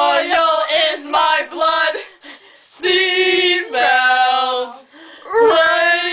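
Human voices imitating a car alarm: a run of quick, repeated short notes, then a pause, then long held tones that step up and down in pitch.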